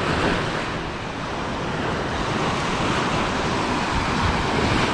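Small waves breaking and washing up the sand in a steady rush, with wind on the microphone.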